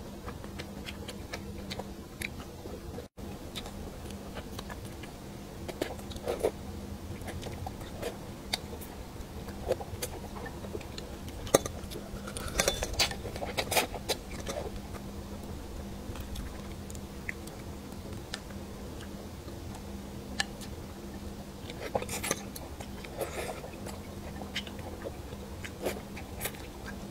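Close-miked eating: wooden chopsticks clicking against a plate of spicy braised fish, with short scattered clicks throughout and denser bursts of mouth sounds as pieces of fish are eaten, about halfway through and again later. A steady low hum runs underneath.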